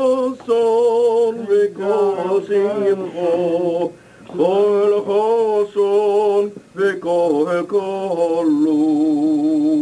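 A man chanting a Hebrew blessing solo in a cantorial melody: long, ornamented phrases with a wide vibrato, ending on a long held note.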